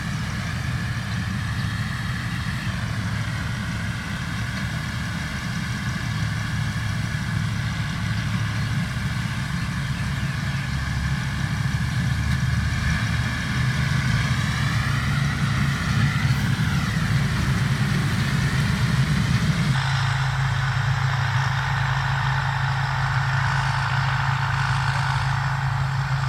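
Rice combine harvester's diesel engine running steadily under load, with the clatter of its working machinery. The pitch sags and rises for a moment around two-thirds of the way in, and the sound changes abruptly shortly after.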